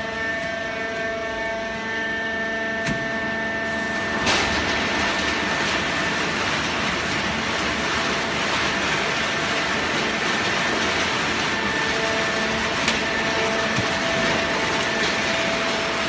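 Fully automatic horizontal hydraulic baler running: a steady machine hum with several held tones. About four seconds in it is joined by a sudden, louder rushing noise that continues, with a few sharp clicks.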